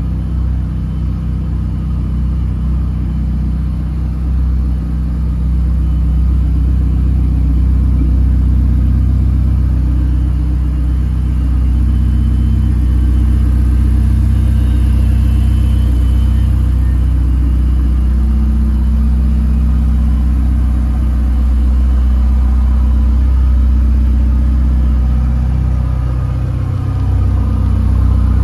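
Ferrari 488 Pista's twin-turbo V8 running as a steady low rumble. Its note shifts a little in the second half and dips briefly near the end before rising again.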